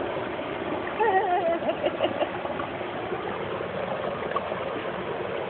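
Steady rush of running water at a fish pond, with a brief wavering call about a second in and a few small splashes from feeding fish around two seconds in.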